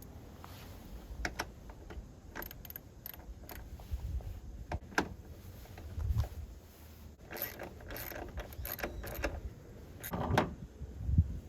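Scattered clicks, knocks and light metallic rattles of hand work on a car door, with tools and small parts being handled; a louder cluster of knocks comes near the end.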